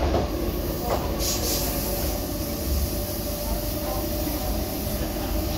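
Double-deck RER D commuter train heard from inside the passenger car while running: a steady low rumble with a faint steady whine. A brief knock just under a second in and a short high hiss just after it.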